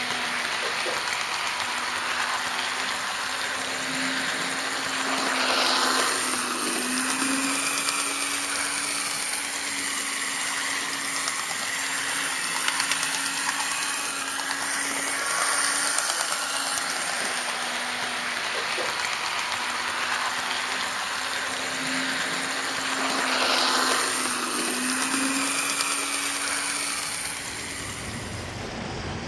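HO-scale model train camera car running along the track: a steady whirring hiss from its small electric motor and wheels on the rails, with a low hum underneath, swelling briefly twice.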